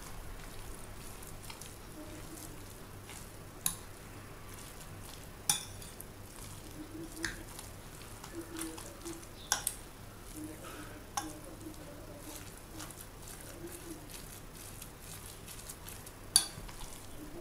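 A metal spoon stirring a wet minced-meat filling in a ceramic bowl, soft and squelchy, with a few sharp clinks of the spoon against the bowl.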